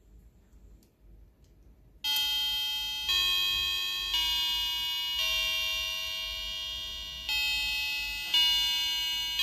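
APEX Melody Box starting its hourly chime tune on the signal from the SKP melody-module clock movement: about two seconds in, bright electronic bell-like notes begin, each struck sharply and fading, about one a second, with the fourth note held about twice as long.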